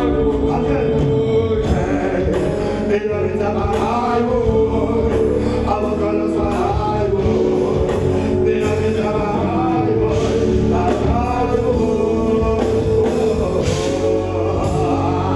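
Live reggae band playing: drum kit, electric guitars and keyboard with a steady beat, and a man singing over it.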